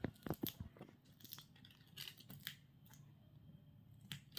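Faint, irregular sharp clicks and snips, a parrot nibbling with its beak.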